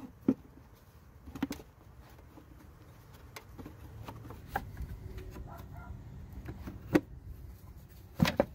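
Scattered sharp plastic clicks and knocks as hands pull at the air filter housing shell and its rubber intake boot, trying to free the old filter from the awkward airbox. The hits come irregularly, a few seconds apart, the loudest two near the end.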